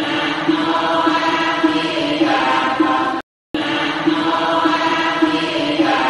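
Buddhist chanting, a steady voice holding and stepping between notes. It breaks off into silence for a moment about three seconds in, then starts again.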